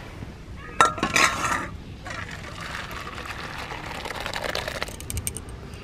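A sharp metal clink about a second in, then thick cooked urad dal pouring from a metal pot into a steel bowl as a steady wet rush lasting a few seconds, with a few light clinks near the end.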